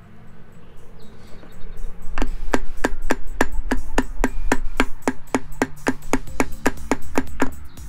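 Rapid light hammer taps on a cast aluminium UTV differential case, about four a second for roughly five seconds, starting about two seconds in: tapping the two case halves apart, which are slowly separating.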